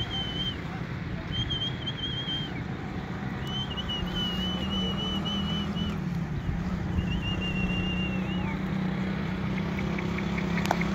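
A steady low hum runs under four short runs of high, wavering whistle notes, each lasting about one to two seconds.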